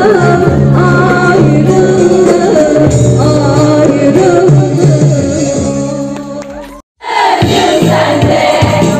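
Young women singing karaoke into microphones over a backing track of a Turkish-language song. The music fades and cuts off suddenly about seven seconds in, and after a short silence a different song with singing starts.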